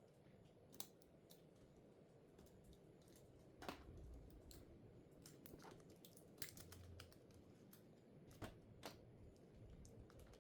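Faint, irregular clicks and taps of small tools and plastic parts on a smartphone being taken apart for a battery replacement, with two slightly louder clicks about 4 and 8.5 seconds in.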